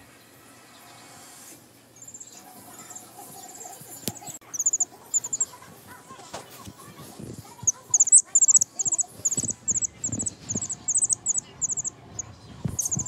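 Week-old chick peeping: short, high cheeps in twos and threes, a few at first, then coming steadily a couple of times a second from about halfway in. Soft rustling and bumps of fluff brushing the microphone lie under them.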